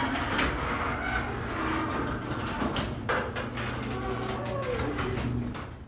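Liftmaster 3/4 hp belt-drive garage door opener running as it raises the door, a steady run with the door's rollers clicking along the tracks, which stops just before the end. It sounds not really loud.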